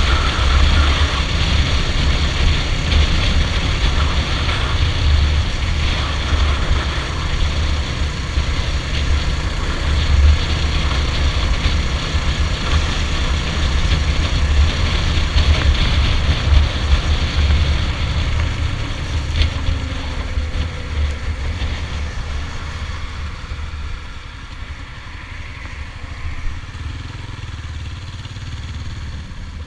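Stallion Centaur 250 Max motorcycle running at road speed with wind rushing past. Past the middle it eases off and slows, and it is quieter for the last several seconds as it rolls along at low speed.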